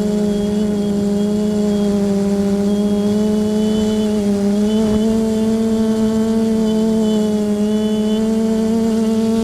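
Multirotor drone's electric motors and propellers, heard from the onboard camera as a steady, loud pitched hum that steps up slightly in pitch about halfway through.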